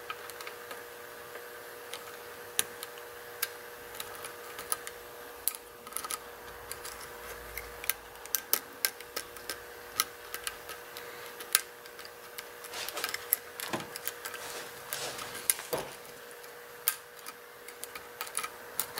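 Lock pick working the pins of a six-pin pin-tumbler challenge lock during single-pin picking: light, irregular metallic clicks and taps as pins are lifted and set. A faint steady hum runs underneath.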